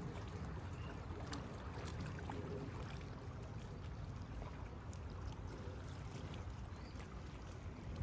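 Steady rush of moving water, with small scattered clicks and splashes.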